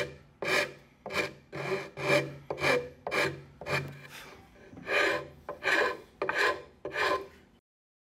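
Hand rasp filing the edge of a wooden cutout in steady back-and-forth scraping strokes, about two a second, with a short pause a little past halfway. The strokes stop abruptly near the end.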